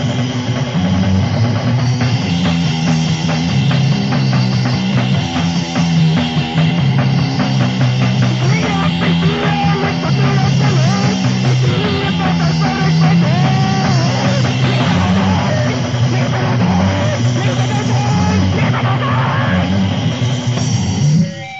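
Loud, dense punk rock with a drum kit, a crust/grind band track from a compilation cassette, playing steadily until it cuts off abruptly near the end.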